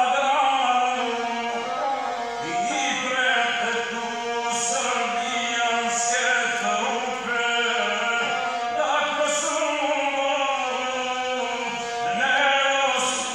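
Gusle, the single-string bowed Balkan folk fiddle, played in a continuous wavering, ornamented line, with a man's chanted epic singing over it.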